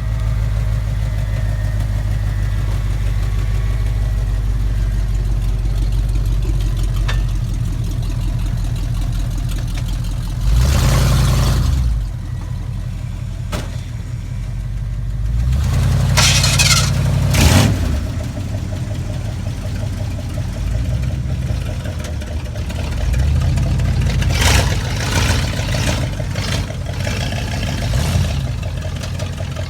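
A pickup truck's engine idles with a low, steady rumble and is revved hard several times: once about ten seconds in, twice around sixteen to seventeen seconds, and a few more times near the end.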